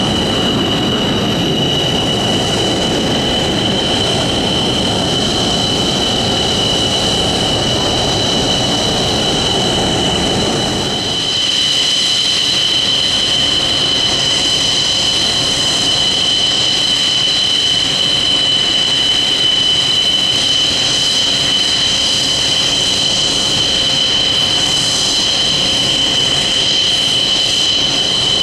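JF-17 Thunder's Klimov RD-93 turbofan running on the ground at idle: a loud, steady high-pitched whine. A lower rumble under it falls away about eleven seconds in.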